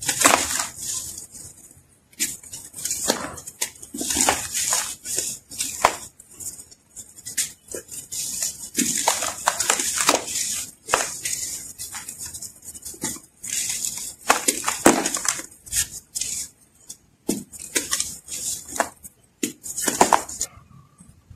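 Hands crushing and crumbling hard, dry chunks of earthy sand, giving crisp crackly crunches and gritty sifting in irregular bursts with short pauses between squeezes.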